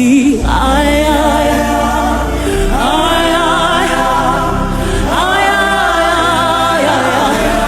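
Gospel worship music: a choir and congregation singing long held phrases over a keyboard pad and a steady bass.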